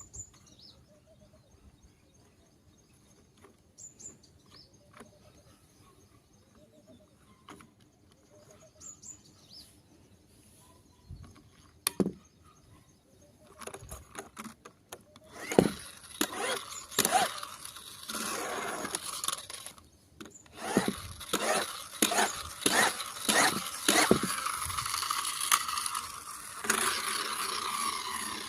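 Plastic push-and-go toy stunt car clattering and rolling, with a run of loud knocks and a steady whirring hiss from its wheels starting about half-way through. Before that there are only a few faint clicks.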